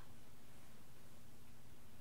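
Quiet room tone: a steady faint hiss with a low hum underneath, and one faint click right at the start.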